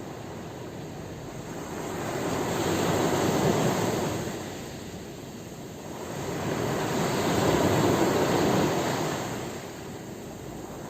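Sea waves washing in: two surges of surf, each swelling and then falling away over about four seconds.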